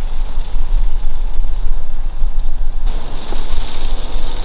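Wind buffeting the camera microphone: a loud, unsteady low rumble, its texture changing abruptly about three seconds in.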